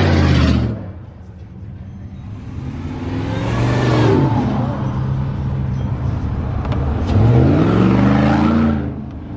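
Pickup truck engines revving as trucks drive past one after another. Two rev-ups, about three seconds in and again about seven seconds in, each climb in pitch and then drop away, with a steady engine note between them.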